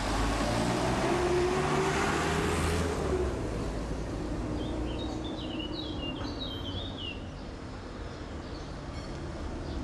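A motor vehicle passes close by, its engine note rising over the first few seconds, over street noise. Midway a small bird chirps a quick run of short, falling notes.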